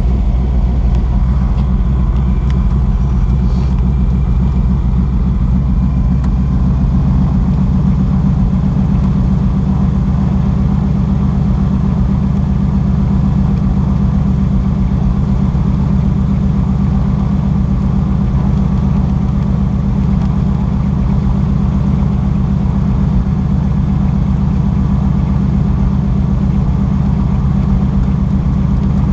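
De Havilland Beaver ski plane's engine and propeller running steadily at an even, loud level.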